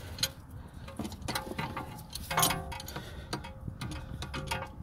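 C-clamp being worked against a brake caliper to push the piston back: irregular light metallic clicks and knocks, with a louder scrape about halfway through.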